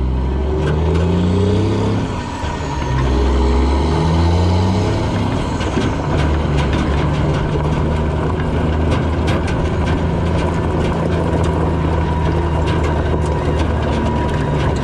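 Mack CH613 semi's diesel engine pulling a loaded lowboy away under acceleration, rising in pitch, dropping with an upshift about two seconds in and again around five seconds, then running steadily. Tyres crunch and crackle over loose gravel through the second half.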